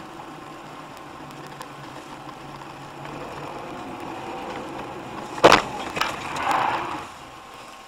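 Road and engine noise inside a moving car, with one sharp, loud bang about five and a half seconds in, followed by a rougher noise lasting about a second.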